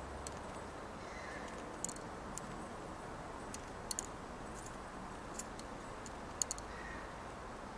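Mourning dove pecking at seeds on a wooden feeder tray: about a dozen sharp, irregular beak clicks, the loudest near the end, over a steady low background hum.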